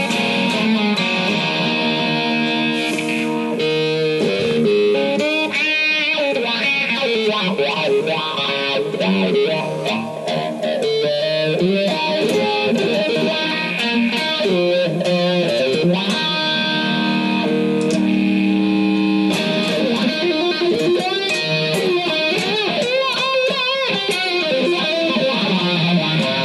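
Electric guitar playing a lead line: long held notes with wavering bends and vibrato, the notes changing every second or so.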